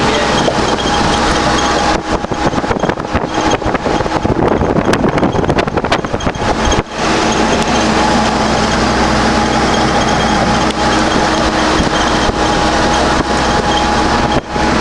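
Steady road and engine noise heard from inside a moving vehicle at highway speed, with a few steady hum tones. For a few seconds near the start it turns choppy and uneven before settling back to a steady run.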